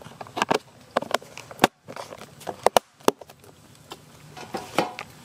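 Snap-on plastic lids being pressed onto plastic food boxes and the boxes knocked down onto a steel plate: a scattered series of sharp clicks and knocks.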